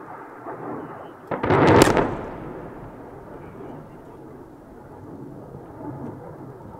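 Air-dropped bomb detonating far off: a sharp blast about a second and a half in, led by a couple of cracks, then a low rumble that fades over about a second.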